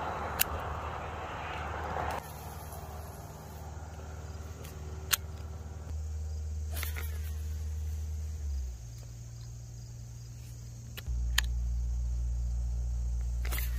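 Baitcasting reel spool whirring as line pays out on a cast, stopping abruptly about two seconds in. After that comes a steady low rumble with a few sharp single clicks.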